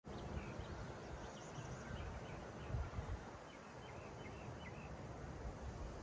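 Small birds chirping in a yard: quick runs of short, high chirps, one run at the start and another a few seconds later. Under them is a steady high insect hum and a low, uneven rumble.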